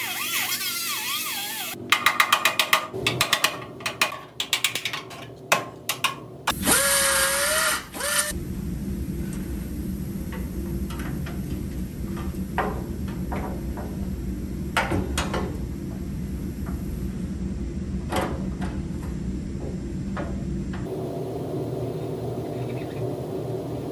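Pneumatic cut-off tool grinding into the steel radiator support in short bursts, with sharp metallic clatter, notching the metal for clearance. It is followed by a steady low hum with scattered light ticks.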